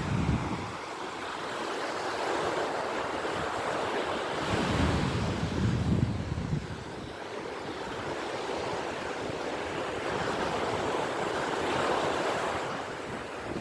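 Ocean surf washing on a beach, a steady hiss, with wind buffeting the microphone in gusts at the start and again around five seconds in.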